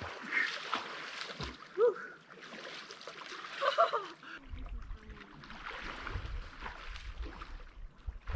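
Water splashing around a person swimming in a cold lake, with two short, high gasping cries at the cold about two and four seconds in. From about halfway a low rumble joins the splashing.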